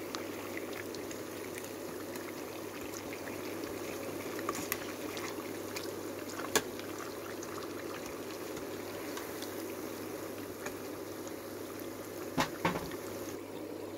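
Oil sizzling and bubbling steadily as sesame-coated glutinous rice balls (buchi) deep-fry in a pot, browned and nearly done. A metal ladle clicks against the pot a few times, loudest about six and a half seconds in and twice near the end.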